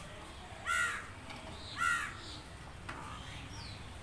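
Two loud, harsh bird calls about a second apart, then a fainter call and a short falling chirp near the end.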